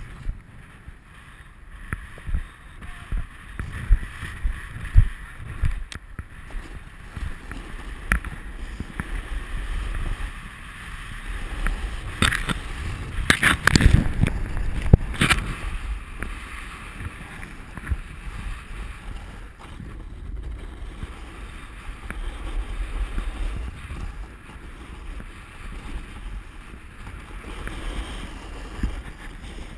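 Snowboard sliding down hard, icy snow: a continuous scraping rush with wind buffeting the microphone, broken by knocks and jolts. A cluster of loud, sharp knocks and scrapes comes about twelve to sixteen seconds in.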